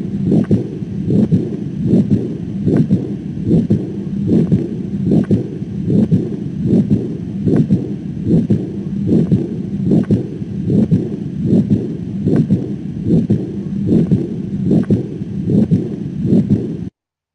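Recorded heart sounds as heard through a stethoscope: a low, regular heartbeat repeating a little over once a second. It stops abruptly near the end.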